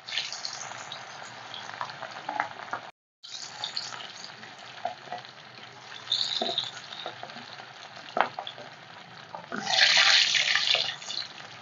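Masala-coated fish pieces deep-frying in hot oil in a wok: a steady sizzle, with a few sharp clicks of metal tongs on the pan. Near the end the sizzling flares up loudly for about a second as another piece is lowered into the oil.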